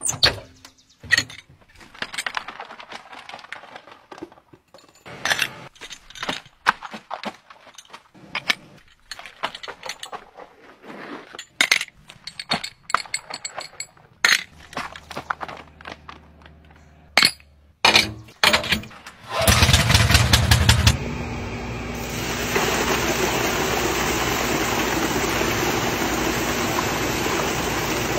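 Scattered metal clanks, clicks and knocks as a diamond-plate truck toolbox is opened and hose gear is handled, then a loud rumble lasting about a second and a half, then a steady rush of water pouring from a delivery hose into an in-ground pool being filled.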